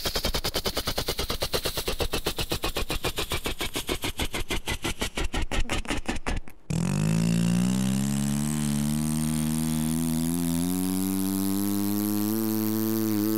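Helicopter rotor blades chopping in a rapid, even beat that cuts off suddenly about halfway through. A steady engine-like hum then takes over, rising slowly in pitch.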